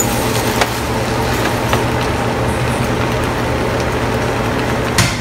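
A steady hum and hiss in a kitchen while fried rice is stirred in a wok, with a few light clicks of a plastic spatula against the pan and a sharper knock near the end.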